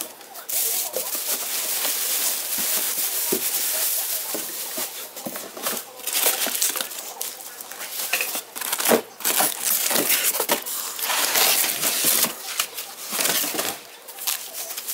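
Packaging of a boxed bar stool being pulled open and handled: continuous crinkling and rustling with scattered small clicks, coming in swells.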